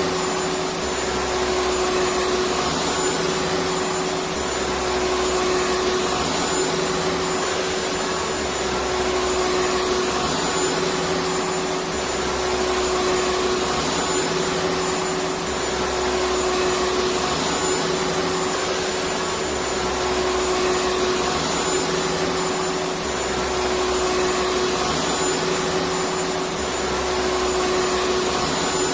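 Vacuum cleaner running steadily: a constant rush of air with a fixed motor whine, the low rumble swelling and easing every few seconds.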